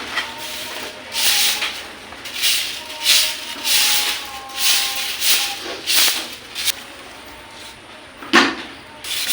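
Repeated rhythmic rubbing strokes, roughly two a second, from household cleaning, with a single knock near the end.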